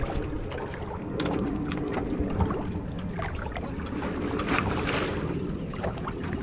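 Wind on the microphone and sea water around a wooden boat, over a steady low hum, with a few short knocks against the hull.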